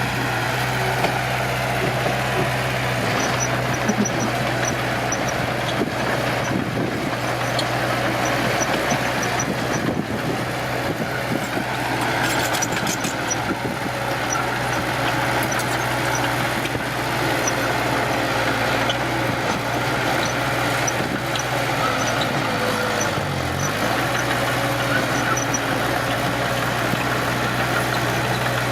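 Heavy diesel earth-moving machinery running steadily, a constant low engine hum under the noise of work, with faint short high ticks repeating on top.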